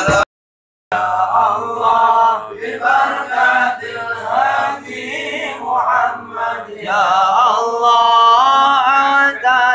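Group of male voices chanting Arabic devotional verses in unison, starting after a brief break near the start.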